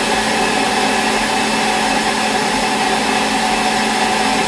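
Personal countertop blender running steadily at full speed, its motor giving a loud, even whirr with a steady hum, as it purees a cup of green vegetables into a smooth juice.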